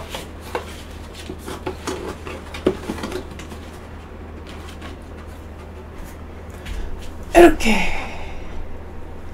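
Dishes and a plate handled on a hard surface: a run of light knocks and clinks over the first few seconds, then one louder clatter about seven seconds in.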